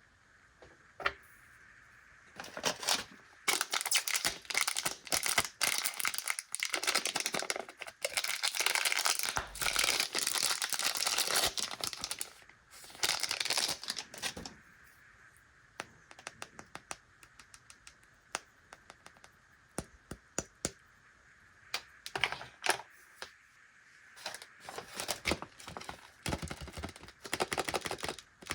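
Plastic candy wrappers crinkling and tearing as packets are opened by hand, in two long dense stretches, with scattered light clicks and taps in between.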